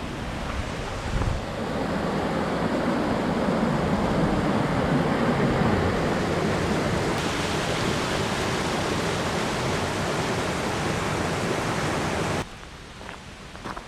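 Waterfall: a steady rush of falling water that cuts off abruptly near the end, leaving a much quieter background with a few faint clicks.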